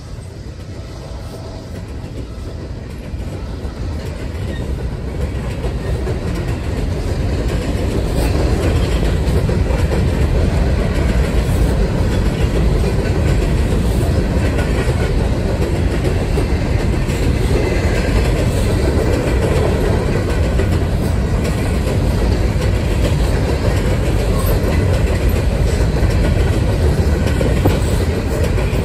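Empty coal hopper cars of a freight train rolling past close by: a steady rumble of steel wheels on rail that builds over the first several seconds, then holds.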